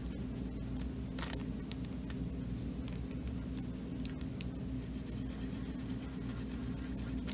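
Marker strokes on a paper bag, a few brief scratchy strokes over a steady low room hum.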